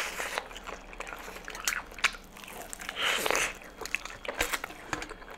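Biting into crispy Popeyes fried chicken and chewing it, the breading crackling and crunching in short irregular clicks.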